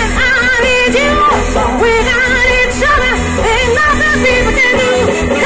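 A woman singing a pop song into a microphone over a backing track with a steady bass beat, amplified through PA speakers.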